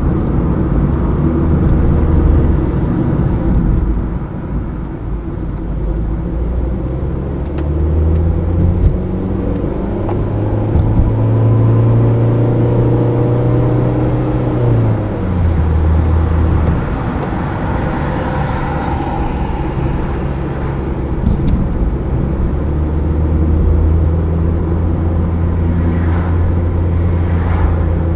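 Car engine and tyre noise while driving. The engine note climbs for several seconds, falls sharply about halfway through, then holds steady.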